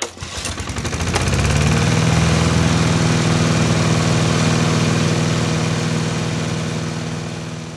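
Boat engine running steadily, growing louder over the first couple of seconds, then slowly fading as the vessel passes.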